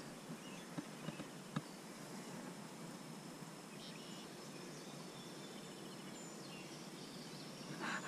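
Quiet riverbank ambience: a steady faint hiss of open air and water, with a few faint bird chirps and a few soft clicks in the first two seconds.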